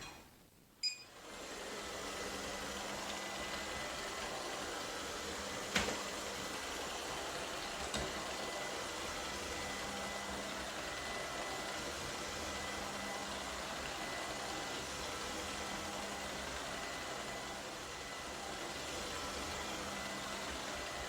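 Robot vacuum cleaner running steadily, an even whir with a faint high whine, after a click about a second in; two light knocks come a few seconds later.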